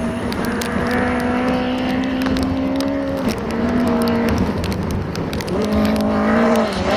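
Peugeot 208 rally car's engine held at high revs on a gravel stage. The revs drop at a gear change about three seconds in and build again near the end, with gravel crunching and stones ticking under the tyres.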